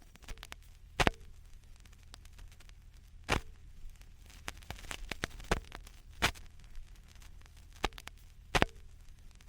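Surface noise of an old vinyl record: scattered clicks and irregular louder pops over a low steady rumble.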